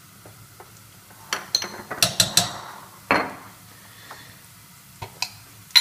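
Metal spoon and utensils clinking against a pot and spice containers: a quick run of light clinks, then a louder knock with a short ring about three seconds in, and a few more taps near the end.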